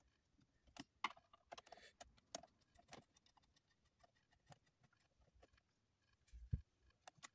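Faint, scattered clicks and scrapes of a screwdriver turning the small screws of a steering-column cover, with one low thump about six and a half seconds in.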